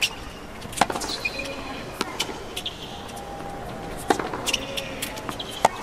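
Tennis rally on a hard court: a tennis ball struck back and forth by rackets and bouncing on the court, a sharp pop about every second.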